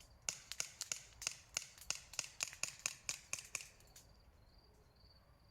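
Airsoft gun with a tracer unit on the muzzle firing a rapid string of about twenty sharp shots, about five a second, stopping about four seconds in. Crickets chirp faintly in the background.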